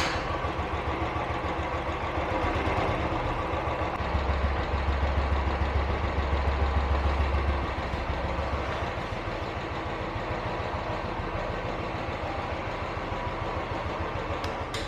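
Royal Enfield Classic 350's single-cylinder engine idling through its stock BS4 silencer with a steady low thump, louder for a few seconds in the middle.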